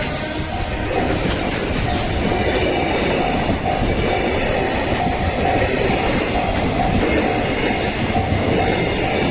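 Freight train rolling through a level crossing, its wagons' wheels clattering over the rail joints with a steady rumble. Over it the level-crossing warning bell rings at about two strikes a second.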